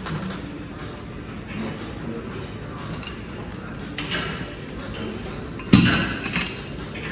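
Metal dumbbells clanking: one sharp, ringing clank about three-quarters of the way through, followed by a couple of lighter clinks, with a few softer knocks a little earlier, over gym background noise.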